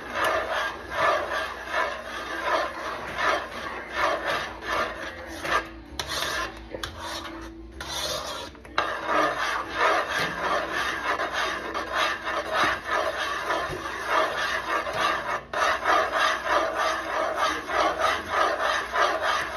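A stirring utensil scraping round the bottom of a pot in quick, even strokes, about two a second, easing off briefly about six seconds in. It is a thick coconut-milk and cornstarch pudding mixture being stirred fast and without pause as it thickens on the heat.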